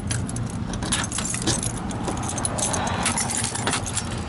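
Metal tools and equipment clinking and rattling irregularly as they are handled and rummaged through, over a steady low hum.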